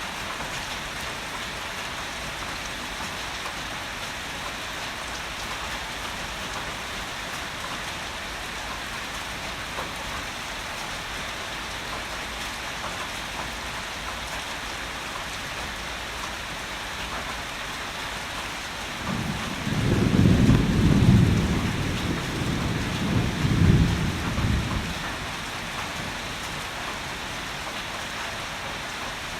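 Steady heavy rain falling, with a low rumble of thunder about two-thirds of the way in that swells twice over some six seconds and then fades.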